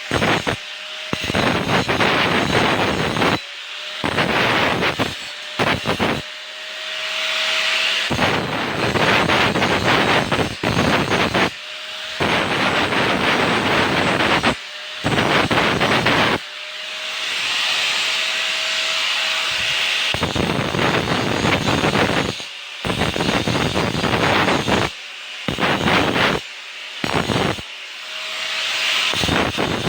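Angle grinder grinding metal grills in repeated passes of a few seconds each. Between the heavy grinding it runs lighter with a steady whine, and it stops briefly about ten times.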